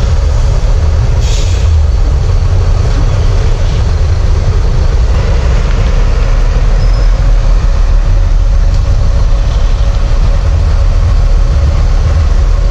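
Diesel coach engine running at low speed as the bus manoeuvres, a steady deep rumble, with a brief hiss about a second in.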